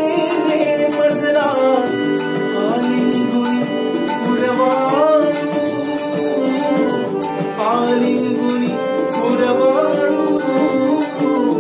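A man sings a Marathi devotional song (bhakti geet) in long, ornamented phrases with gliding pitch, over held instrumental chords and a steady light percussion beat.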